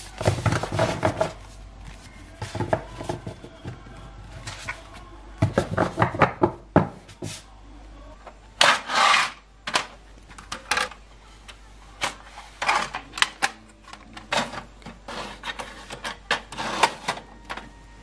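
Paper sheets rustling as they are handled, and the plastic clicks and knocks of a Canon inkjet printer's paper tray being loaded, in a string of short irregular bursts with a longer paper rustle about halfway through.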